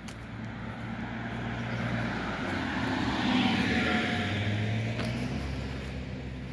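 A vehicle passing by. Its noise swells to a peak about halfway and fades again, with a faint falling whine as it goes past.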